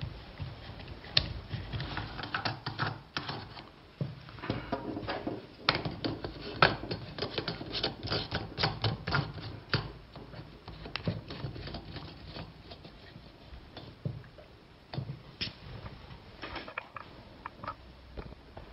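Pressure gauge on a paddleboard hand pump's handle being turned by hand, unscrewed and screwed back in: an irregular run of small clicks, taps and scrapes from the threads and the handled plastic parts, densest in the first half.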